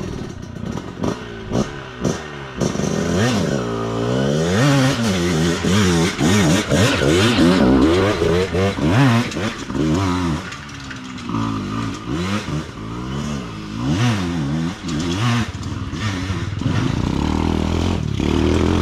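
Mini trail bike engine revved up and down over and over, pitch rising and falling about once a second, with scattered clatter and knocks.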